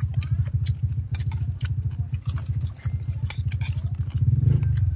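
Spoons clicking and scraping against a plate and a steel bowl as people eat, over a loud, steady low pulsing drone like a small motor running nearby.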